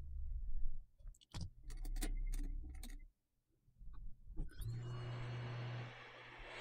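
Small clicks and taps of metal tools on a laptop logic board during micro soldering. About four and a half seconds in, a steady rush of air with a low hum starts up and keeps going.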